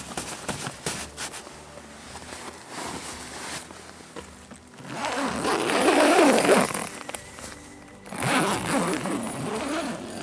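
A zipper pulled in two long strokes, most likely the tent's door zipper, each pull lasting about two seconds, with lighter rustling and clicking before them.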